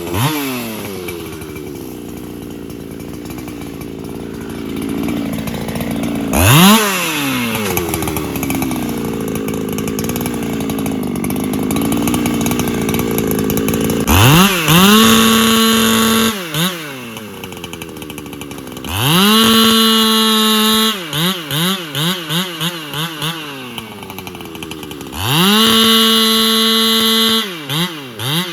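Solo 681 two-stroke chainsaw run hard. For the first half its engine note is lower and wavering. In the second half it is held three times at a steady full-throttle scream and dropped back, with a run of quick throttle blips of about three a second in between.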